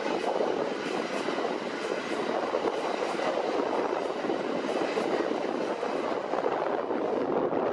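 Tobu Skytree Line electric commuter train running past, a steady rush of wheel-on-rail and running noise.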